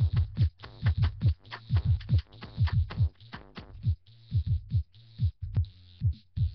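Chopped electronic beat cut from a sample: deep kick-drum thumps, each dropping in pitch and often in quick pairs, in a stuttering rhythm, with hiss above them and a low bass hum between the hits.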